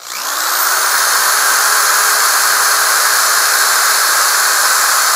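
Cordless drill spinning up and running at speed, boring the second screw hole in a plywood servo tray. Its motor whine rises at the very start and then holds steady over a loud, even whirring noise.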